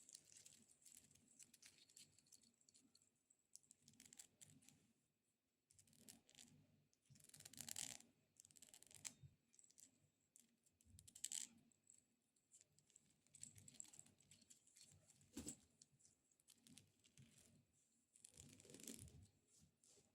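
Long acrylic nails faintly scratching and tapping on a baby dragon figurine: scattered light clicks and short scratchy strokes, with a few louder scratching bursts.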